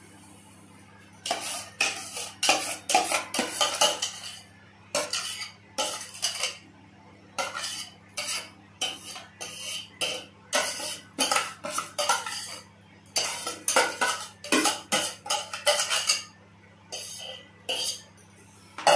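Steel spoon scraping and knocking against stainless steel pots, over and over, as cooked wood apple pulp is scooped from one pot into another. The strokes come a few a second in irregular runs, starting about a second in.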